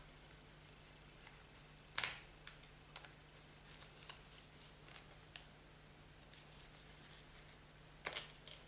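A small cutter scratching and clicking along the edge of a new vinyl album sleeve as it is opened. Scattered sharp scratches, the loudest about two seconds in and a quick cluster near the end.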